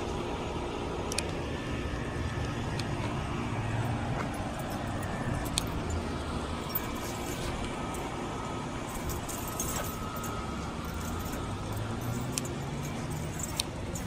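Steady low rumble of distant road traffic, with scattered faint clicks.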